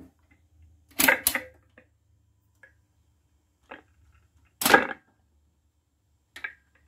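Sharp clicks and knocks from working a record turntable as the record is started: a double click about a second in, a few light ticks, and a louder knock a little after the middle, over a faint low hum.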